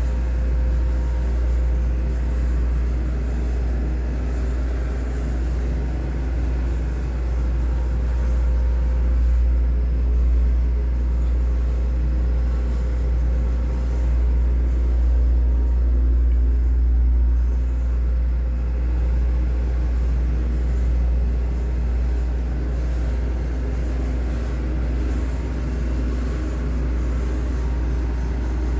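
Humidifier running with a steady, loud low rumble and a faint hum.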